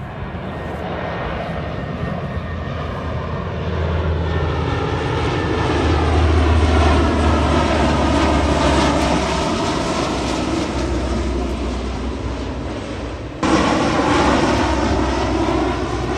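Lockheed C-130 Hercules four-engine turboprops passing low overhead: a deep, steady propeller drone that grows louder, then eases off. About 13 seconds in the sound cuts abruptly to another Hercules, louder.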